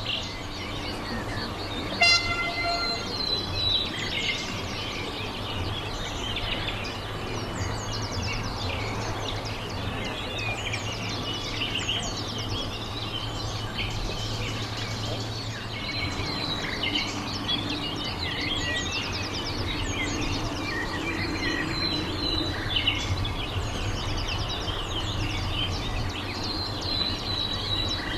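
Small birds chirping and twittering throughout over a steady low hum. About two seconds in, a sharp click is followed by a short horn-like toot lasting about a second.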